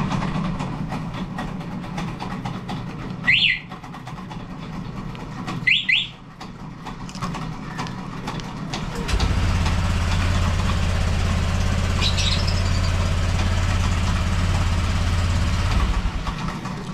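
Aftermarket scooter alarm chirping once about three seconds in and twice about six seconds in as it answers the remote. About nine seconds in the Honda Click 125i's single-cylinder engine is started by remote and idles steadily for about seven seconds, then stops.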